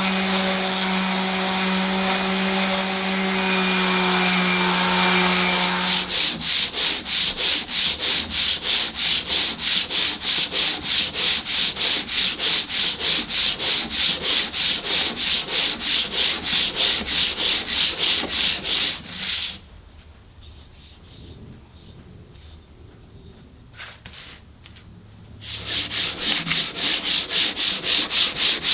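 A small power tool runs steadily and stops about six seconds in. Then sandpaper is rubbed back and forth by hand on the rusty iron's parts in even strokes, about three a second. The rubbing pauses for several seconds and starts again near the end.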